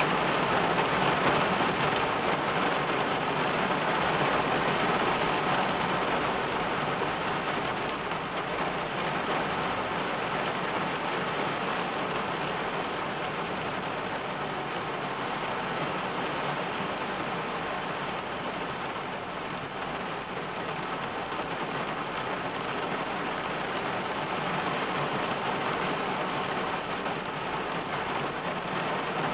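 Steady heavy rain drumming on a car's roof and windshield, heard from inside the car.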